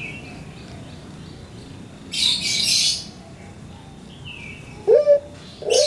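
Caged collared dove of the long-cooing 'pelung' kind starting its coo near the end: a short rising note, then a second that rises into a long, steady low coo. Faint small-bird chirps sound behind it, and a second-long burst of hissing noise comes about two seconds in.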